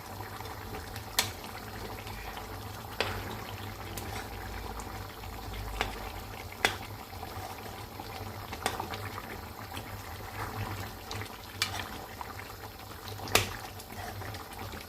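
Chicken stew with coconut milk bubbling steadily in a wok over a high gas flame, with a sharp click now and then.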